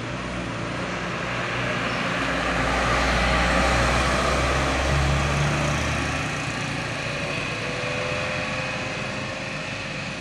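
Heavy sugarcane trucks driving past at speed, engine rumble and tyre noise swelling to their loudest about three to four seconds in as one goes by. The noise eases off as the next truck approaches.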